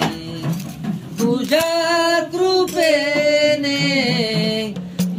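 A man singing a Marathi devotional bhajan to Vitthal in long, held, bending notes over instrumental accompaniment.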